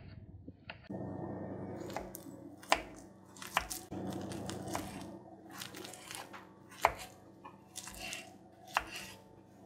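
Paring knife slicing a peeled banana on a wooden cutting board, the blade tapping the board with each cut: several sharp, irregular taps over a soft, steady background hum.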